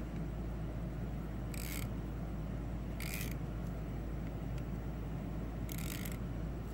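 Drag clicker of a round baitcasting reel buzzing in three short bursts as line is pulled off the spool against the drag.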